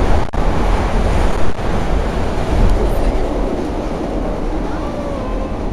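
Passenger train running, heard from inside the car: a loud, steady rumble and rush of wheels on rails.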